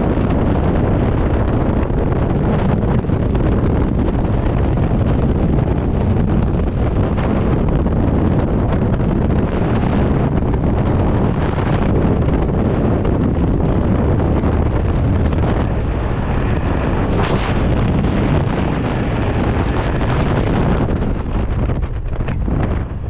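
Freefall wind rushing and buffeting over a helmet camera's microphone, loud and steady. Near the end it eases a little as the parachute canopy opens overhead.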